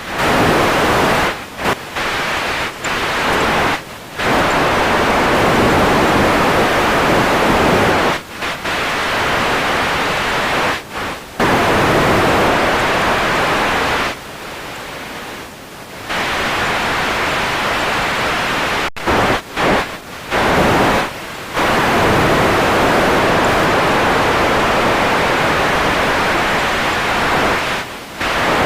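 Radio static: a loud steady hiss that cuts out and back in again and again, with short drop-outs and one longer quieter lull about halfway through.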